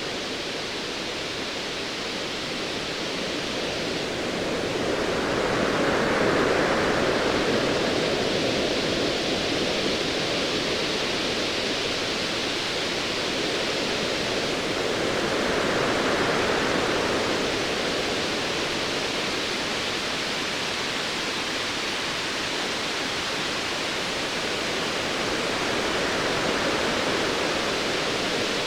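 Ocean waves: a steady wash of surf that swells and ebbs slowly, with a wave surging in about every ten seconds.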